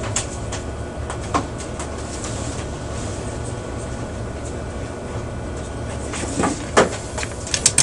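Light clicks and taps as a component and a soldering iron are worked against a circuit board, several of them close together near the end, over a steady low hum.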